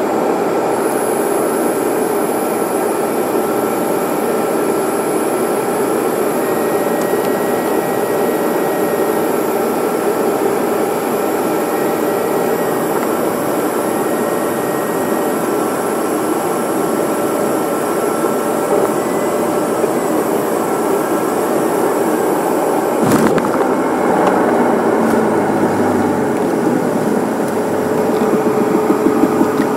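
Steady cabin noise of an airliner on final approach: jet engines and rushing air with a thin steady whine. About 23 seconds in there is a sudden thump followed by a low rumble as the wheels touch down and roll on the runway.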